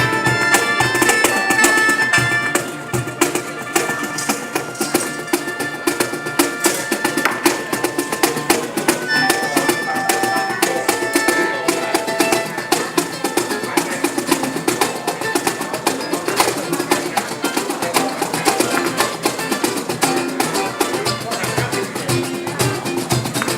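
A live band playing during a sound check: pitched instruments over dense, steady percussion.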